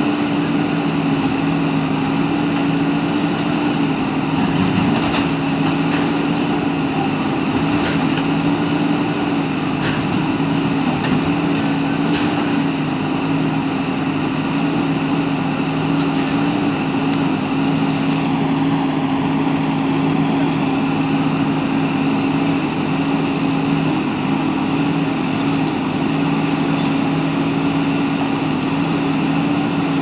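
JCB backhoe loader's diesel engine running at steady revs as the backhoe arm works, with a few faint knocks.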